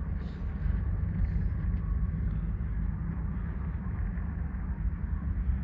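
Low, gusty rumble of wind buffeting the microphone, with no clear pitch and a faint hiss above it.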